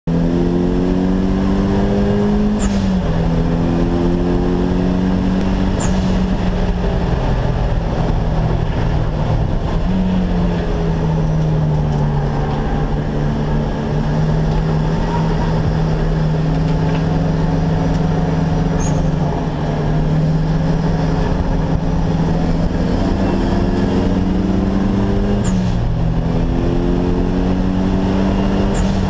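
Nissan Silvia's turbocharged SR20DET four-cylinder at racing speed, heard inside the stripped cabin: the engine note climbs under throttle and drops sharply at each upshift, four times, with a long stretch of slowly falling pitch in between.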